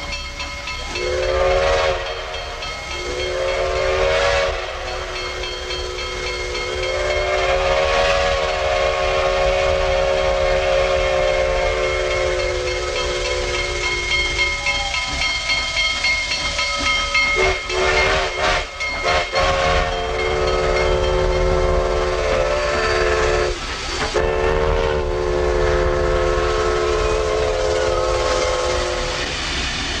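Grand Trunk Western No. 4070, a 2-8-2 steam locomotive, blowing its whistle over a steady hiss of steam: two short blasts, then one long blast of several seconds. After a brief clatter, two more long blasts follow.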